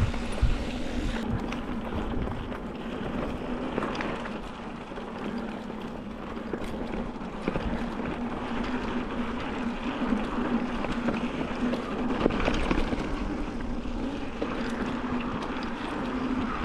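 Mountain bike rolling fast along a dirt singletrack: tyre noise and wind buffeting the microphone, with scattered rattles and knocks from the bike over bumps and a steady low hum underneath.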